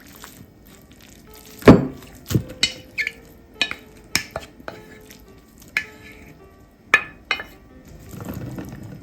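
Kitchen utensils and dishes clinking and knocking at irregular intervals, with one sharp knock just under two seconds in the loudest, and a soft rustling near the end.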